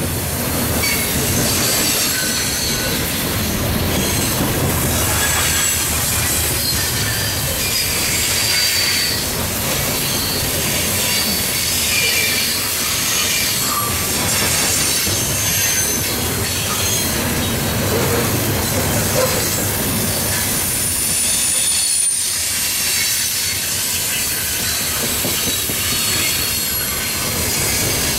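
Loaded coal hopper cars of a freight train rolling steadily past: a continuous rumble of steel wheels on rail, with high-pitched wheel squeals coming and going.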